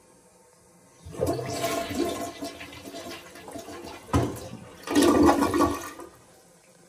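Toilet flushing: water rushes into the bowl about a second in, then surges again, louder, near the end before dying away.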